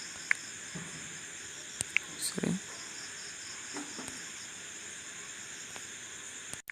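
Insects, likely crickets, chirping steadily in the background in an even pulsing trill, with a few short clicks.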